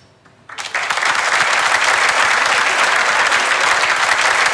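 Audience applauding, starting suddenly about half a second in and holding steady and loud.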